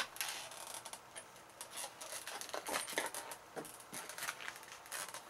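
Hard-to-open packaging crinkling and crackling in short, irregular bursts as it is worked open by hand.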